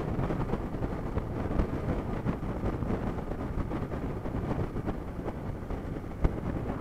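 Wind buffeting the microphone together with the road and engine noise of a sport motorcycle riding at highway speed, as a steady rumbling rush, with a brief knock a little over six seconds in.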